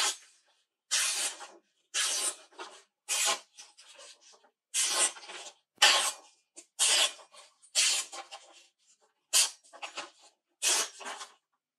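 A freshly sharpened Japanese usuba kitchen knife slicing through a sheet of paper held in the hand: about ten separate cuts roughly a second apart, each a short papery hiss as the edge passes through.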